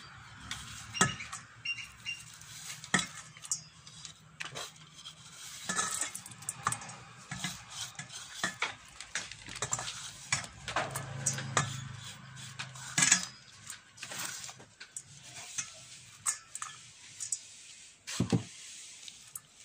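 Clay bowl and stainless steel mixing bowl clinking and knocking irregularly as chopped onions, green chillies and garlic paste are scraped in by hand and mixed into ground red lentil paste. The sharpest knocks come about a second in, about three seconds in and about thirteen seconds in.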